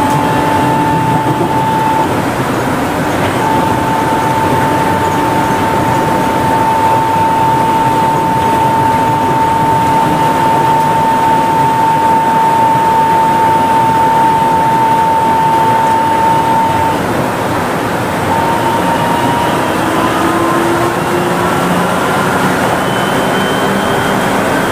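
Kanazawa Seaside Line 2000-series rubber-tyred automated train running, heard from inside the car: steady rolling noise with a single held motor whine that stops about two-thirds of the way through. Near the end, the whine returns as several tones rising in pitch as the train picks up speed.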